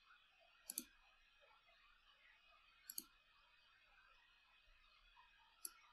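Computer mouse button clicking over near silence: a quick double click, another double click about two seconds later, and a single click near the end.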